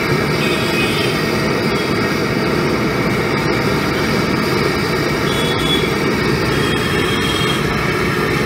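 Gas burner under a street-stall wok, running with a steady low roar.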